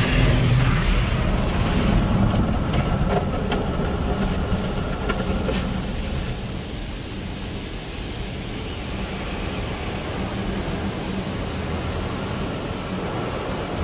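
Water spraying and sheeting over a car's windshield and body in an automatic tunnel car wash, heard from inside the car, over a steady low hum of the wash machinery. It is loudest in the first couple of seconds and eases off a little after that, with a few sharp ticks of water hitting glass a few seconds in.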